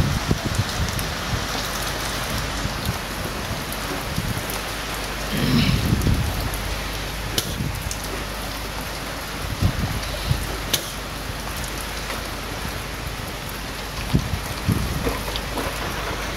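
Heavy rain falling steadily, with a few brief low rumbles.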